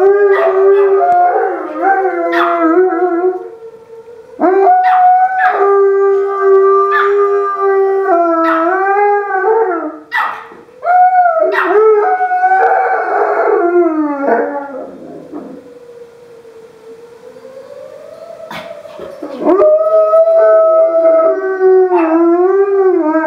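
A giant Alaskan Malamute and a Chihuahua howling in long, wavering, overlapping howls. Under them a siren wails faintly, rising and falling slowly. The siren is heard nearly alone for a few seconds about two-thirds of the way through, then the howling starts again.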